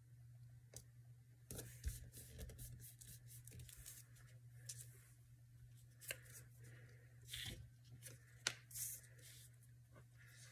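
Faint rustling and sliding of paper pieces being arranged by hand on a collage page on a cutting mat, with a few short ticks and taps, over a low steady hum.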